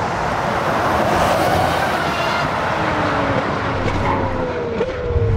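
A motor vehicle driving past: steady engine and tyre noise, its tone slowly falling in pitch toward the end.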